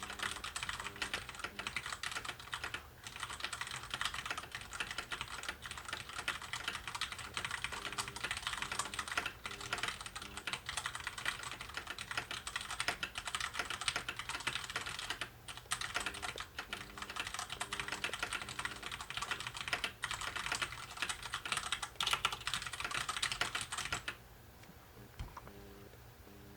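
Fast, continuous typing on a Max Keyboard Nighthawk X8 mechanical keyboard: a dense stream of key clicks with a few brief pauses, stopping about 24 seconds in.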